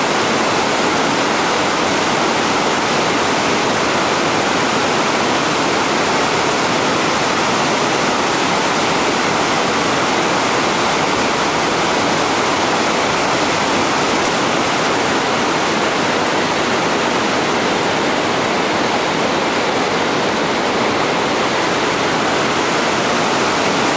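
Whitewater rapid rushing over rocks and a wedged log, a loud, steady, even rush of water.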